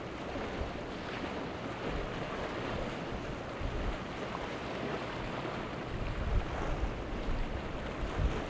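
Sea water washing around at an inlet's rock jetty, with wind gusting on the microphone, the gusts heavier near the end.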